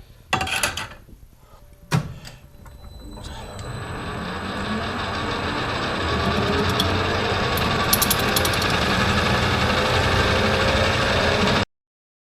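Metal lathe spindle starting up and running, its mechanical noise building over a few seconds and then holding steady, with a click a couple of seconds in. The sound cuts off abruptly near the end.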